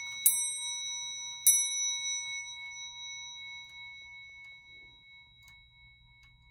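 Hermle 241-083H clock movement striking on its bell: two blows about a second apart, each leaving a long ringing tone that slowly dies away. Beneath it the movement ticks faintly, a little out of beat.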